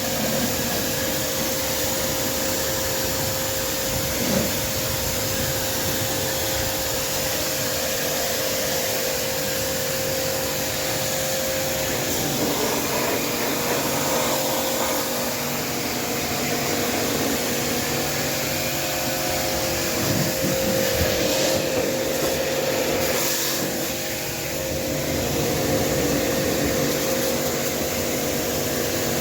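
A small electric motor running steadily with a loud continuous rushing hiss and a steady hum.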